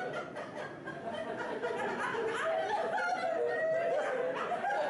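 Several people laughing and chattering at once, an overlapping murmur of voices and chuckles with no clear words.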